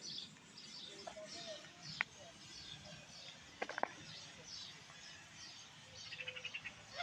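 Small birds chirping over and over, with a few sharp clicks about two seconds in and just before the four-second mark, and a short rapid rattle near the end.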